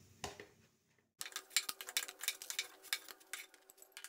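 Metal fork clicking and scraping against a cast-iron tawa as fried coconut vadas are lifted off it, in a quick run of sharp clicks for about three seconds starting about a second in.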